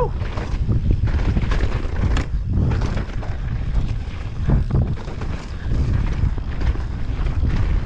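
Mountain bike riding fast down dirt and rock singletrack: heavy wind buffeting on the camera microphone and tyre rumble over the ground. Short knocks and rattles from the bike come through every second or two.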